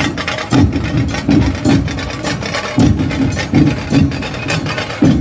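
Background music with a steady, rhythmic drum beat.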